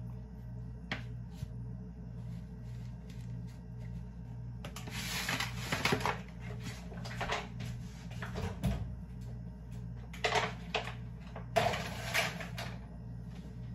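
Kitchen handling sounds: short bursts of rustling and clatter as a pan of chicken is put into an electric oven with its door open, over a steady low hum.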